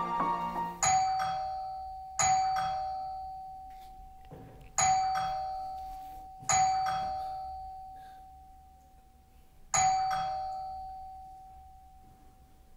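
Doorbell chime rung five times at uneven intervals, each ring a bright struck tone that fades away slowly.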